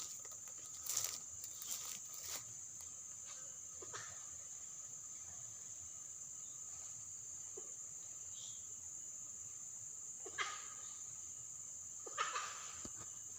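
Steady high-pitched insect drone, with a few short noises over it about a second in, near ten seconds and near twelve seconds.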